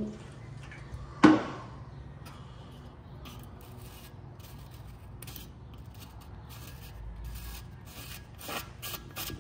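A sharp knock about a second in, then repeated short metal-on-metal scrapes as a threaded metal fuel cap is screwed by hand onto a vintage chainsaw's metal fuel tank.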